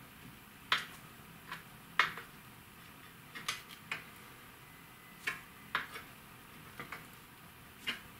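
Irregular light clicks and taps, about a dozen, from spinning rods being flexed with their tips pressed against a wall: the rod tips and guides knocking as they are handled.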